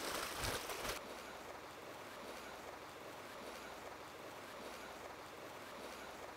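Faint seaside ambience: an even hiss of sea water washing on a rocky shore. It is louder for about the first second, then drops to a quieter steady wash.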